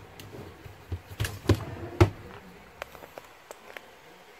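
A run of sharp knocks and clicks, several in the first two seconds with the loudest about two seconds in, then a few light ticks: an airsoft pistol being handled and set down on a cutting mat.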